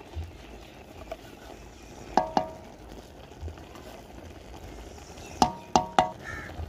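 Metal spoon clinking against an aluminium cooking pot, which rings briefly with each strike: two clinks about two seconds in and three more near the end. Under them, a steady hiss from the steaming, simmering keema.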